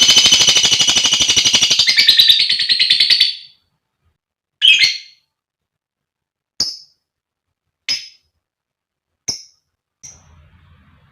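Female lovebird chattering in a rapid, shrill trill that cuts off about three seconds in, followed by one longer call and then four short chirps spaced a second or so apart.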